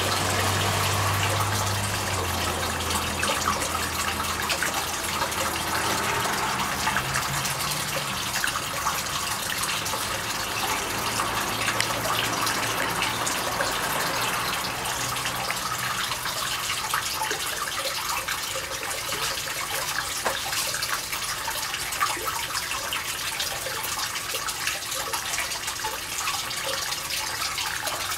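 Steady splashing of running water, with a low hum beneath it that fades out around the middle.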